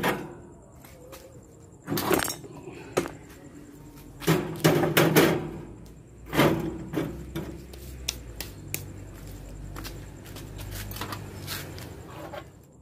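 Metal cooking grates of an offset smoker clanking and knocking as they are handled, in several separate knocks and short clusters.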